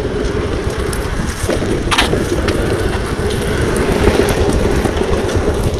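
Wind buffeting the microphone: a steady, uneven low rumble, with a brief sharp click about two seconds in.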